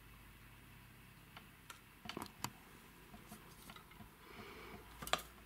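Faint, irregular clicks and light taps with a brief soft scuffing, handling noise as a model railway coach is turned round on its display track.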